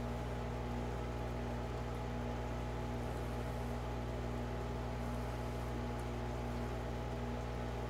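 Aquarium pump running with a steady electrical hum: a low drone with a stack of evenly spaced overtones and light hiss, unchanging throughout.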